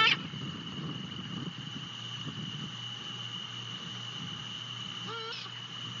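An owl giving short wavering, quavering calls: the end of a loud one at the very start and a fainter one about five seconds in. A steady high insect trill runs underneath.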